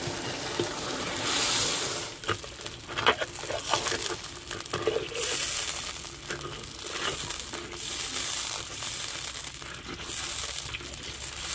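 Sugar and water sizzling in hot desi ghee in a brass karahi, the start of a sugar syrup: a hiss that swells and fades in waves. A metal ladle stirs it, with a few sharp clicks against the pan in the first half.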